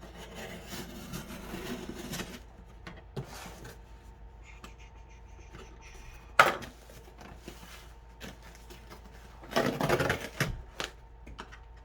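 Hands rustling and handling a package and its packing, with small clicks throughout, one sharp knock about six seconds in and a louder spell of rustling near the end.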